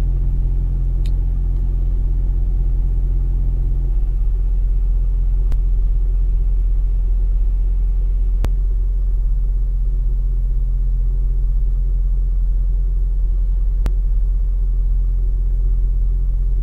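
Car engine running steadily with a low rumble shortly after a cold start, its note shifting slightly about four seconds in. No clutch rattle or chatter is heard.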